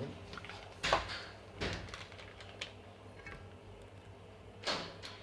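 Crinkling rustles of a soft plastic curd pouch being handled and squeezed to pour curd into a bowl, in a few short bursts about a second apart.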